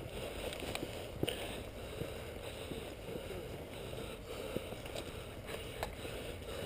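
Footsteps and rustling through long grass and brush as the camera wearer walks, with faint scattered clicks of gear and vegetation over a steady low hiss.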